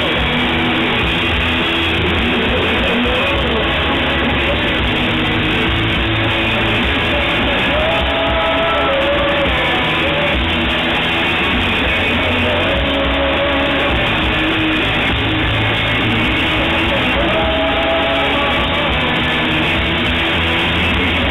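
Live band playing a worship song: strummed acoustic and electric guitars over bass and drums, with voices singing the melody.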